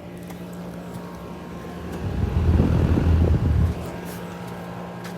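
Goodman outdoor air-conditioner condensing units running with a steady hum. About two seconds in, a louder low rumble swells for a second and a half, then fades.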